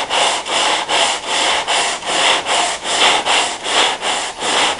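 Hand block sanding of auto body: sandpaper on a soft closed-cell foam sanding block is pushed back and forth over a car's quarter panel. It makes an even rasping rhythm of about three strokes a second.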